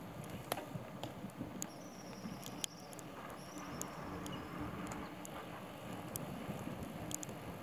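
Bicycle rolling over rough asphalt: a steady low tyre and road rumble with scattered sharp little clicks and rattles from the bike.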